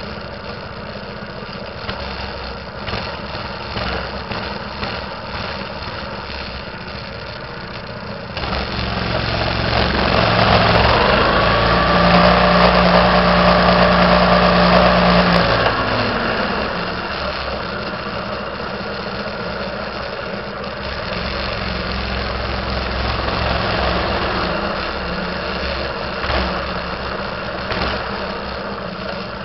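Minibike's small engine running under way. It speeds up about eight seconds in, holds a higher steady pitch for several seconds, then drops back around sixteen seconds, with smaller swells of throttle after that.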